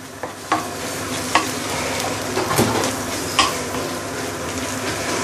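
Fried rice sizzling in a stainless steel wok while a wooden spatula stirs and scrapes through it, with a few sharp knocks of the spatula against the pan.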